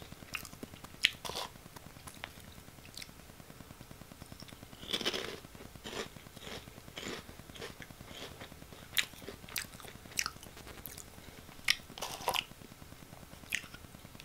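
Close-miked chewing of crunchy Oh!Gamja potato stick snacks: irregular crunches and sharp mouth clicks, with longer, louder crunches about five seconds in and again about twelve seconds in.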